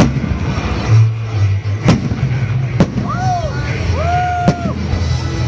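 Aerial firework shells bursting overhead, four sharp bangs at uneven gaps over a steady low rumble. Near the middle come two short, high, arching whistle-like tones.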